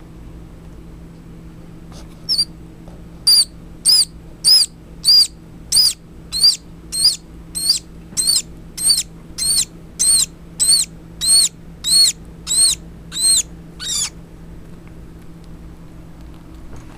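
Baby squirrel giving a run of about twenty short, high-pitched squeaks, each rising and falling, one every half second or so. The squeaks start about two seconds in and stop about fourteen seconds in.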